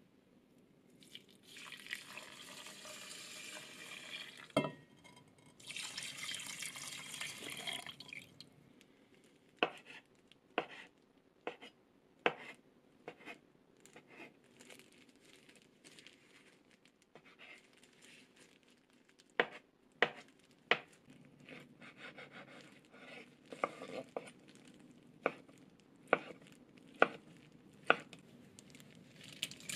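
Broth poured from a steel pot into a rice cooker's inner pot in two pours over the first eight seconds. After that, a kitchen knife cuts through fried tofu and fish cakes on a cutting board: single sharp knocks at uneven intervals, coming faster near the end.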